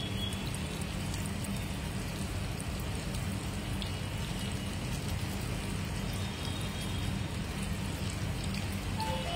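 Cabbage manchurian balls deep-frying in hot oil in a kadai, a steady sizzle with fine crackling as their moisture bubbles off, over a low steady hum.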